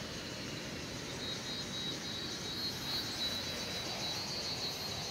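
Insects chirring in a steady high buzz that grows stronger about a second in, over a low, even rush of background noise.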